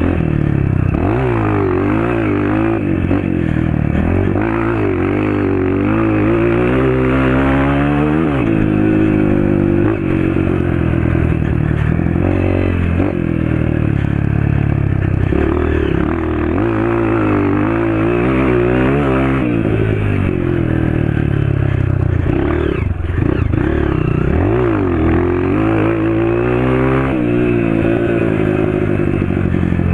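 Honda CRF230 dirt bike's single-cylinder four-stroke engine with an FMF Powercore 2 exhaust, ridden hard: the engine note climbs under throttle and drops back again and again, every few seconds.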